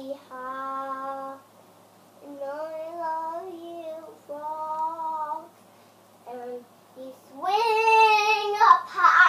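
A young girl singing a series of long held notes with short breaks between them; the last phrase near the end is louder and higher.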